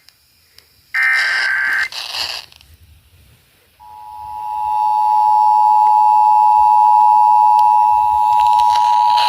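Emergency Alert System broadcast signals: a one-second burst of screechy digital data (a SAME data burst) about a second in, then the two-tone attention signal (853 and 960 Hz together) fading in about four seconds in and holding steady.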